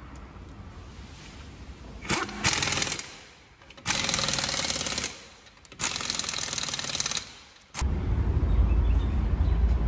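Pneumatic impact wrench hammering on a car's wheel nuts in three bursts of about a second each. Near the end it gives way to a steady low rumble.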